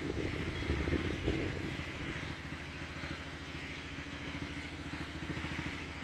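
Heavy diesel engine running steadily with a low, even chug, swelling briefly about a second in.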